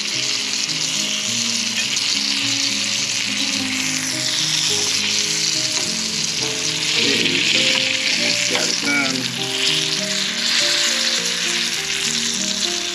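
Flour-battered bluefish fillets sizzling steadily as they shallow-fry in hot oil in a skillet. The hiss grows louder through the middle.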